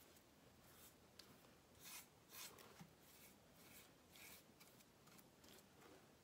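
Faint, short swishes of a flat paintbrush stroking glaze-thinned paint onto a wooden box, one stroke after another at an uneven pace.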